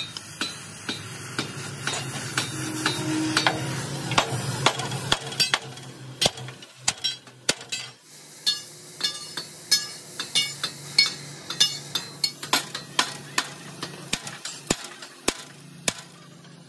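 Hammer blows on steel, struck over and over at roughly one to three a second, over a low steady hum.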